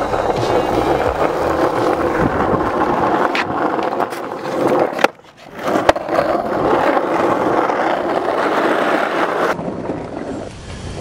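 Skateboard wheels rolling on rough asphalt, a steady gritty rolling. About five seconds in, the rolling cuts out after a sharp crack of the tail popping, goes nearly quiet while the board is in the air, and a clack of the landing comes about a second later, then the rolling picks up again.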